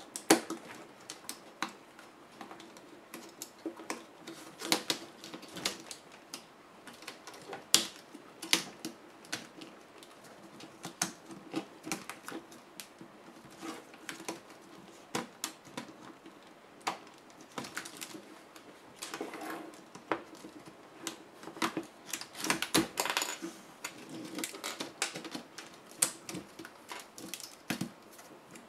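Irregular plastic clicks and snaps as the clip-on screen bezel of an ASUS EeePC 1015PEB netbook is pried loose from the LCD panel, with a quick run of clicks a little past two-thirds of the way through.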